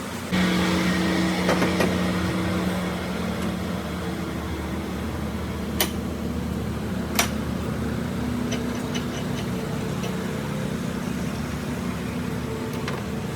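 A machine's motor running with a steady hum, with two sharp clicks a little over a second apart around the middle and a few faint ticks after them.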